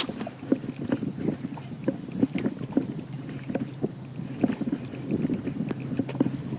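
Small waves slapping against the hull of a boat drifting in the wind, an irregular run of light knocks, with wind on the microphone.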